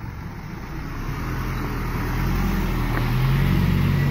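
A motor vehicle's engine running and growing steadily louder, with a low, fairly even pitch.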